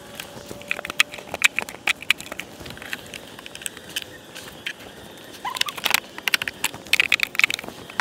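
Wooden hive frames and a metal hive tool clicking and knocking against the wooden hive box as frames are pried loose and shifted, in irregular sharp clicks throughout.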